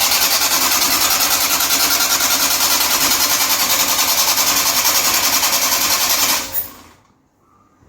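An engine running loud and close, with a fast, even rattling beat; it dies away near the end.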